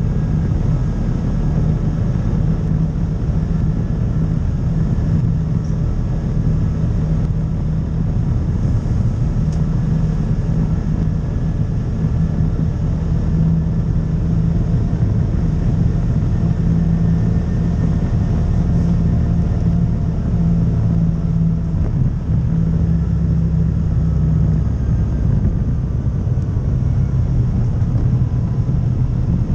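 Side-by-side UTV engine running steadily as it drives along a gravel trail, a constant hum over a low rumble. The engine note drops lower about 25 seconds in.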